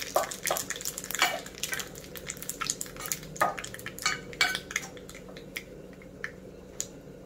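A ladle mashing and stirring soft cooked ridge gourd in a pressure cooker, with mustard seeds sizzling in oil in a small tempering pan. Scattered sharp clicks and crackles, frequent at first and thinning out toward the end.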